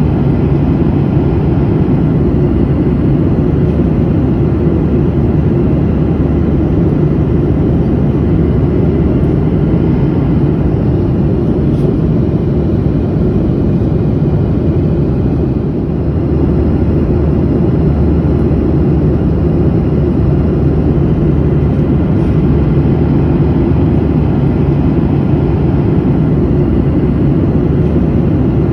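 Steady low drone of an airliner in flight, engine and airflow noise heard from inside the cabin, dipping slightly for a moment about halfway through.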